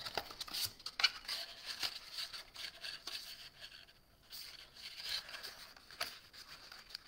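Plain cardstock being folded, pressed and handled, rustling faintly, with scattered light clicks and taps.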